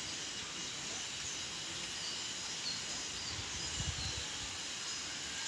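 Outdoor rural ambience: a steady background hiss with a few faint, short bird chirps, and a brief low thump about four seconds in.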